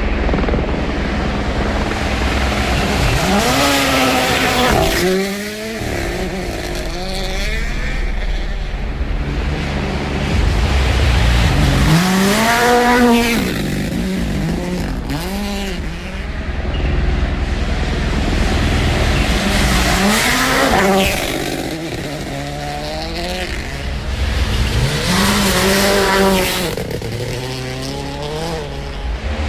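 WRC Rally1 cars' turbocharged engines run hard on a gravel stage. The revs climb and fall in about four waves as the cars accelerate, shift and back off through the stage.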